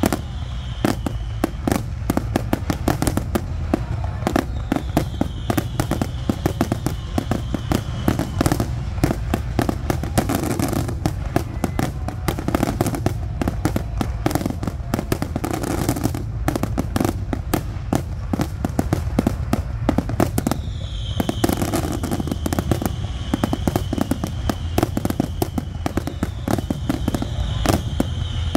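Aerial fireworks display going off in a dense, continuous barrage of sharp bangs and crackles over a steady low rumble.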